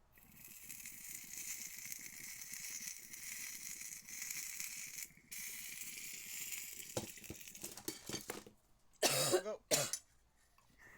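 Dab rig hit: concentrate sizzling on the hot nail with water bubbling in the glass rig, a steady hiss for about eight seconds with a short break near the middle. A few sharp clicks follow, then two loud coughs near the end.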